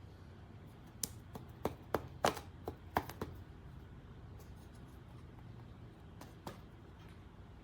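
Hands handling a hard object: a quick run of sharp clicks and knocks from about one to three seconds in, and two more near the end, over a low steady hum.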